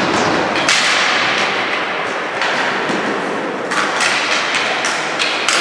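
Ball hockey sticks and the ball striking: repeated sharp knocks and thuds that echo in a large hall, over a steady background din.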